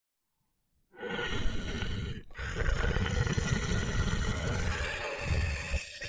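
Tiger roaring: a loud, rough roar starts about a second in, breaks off briefly a little after two seconds, then carries on as a longer roar.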